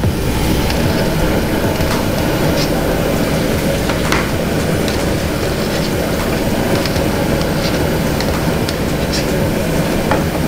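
Steady rushing noise of a gas stove burner under a large aluminium pot of boiling water, with a few light clinks of a wire strainer against the pot.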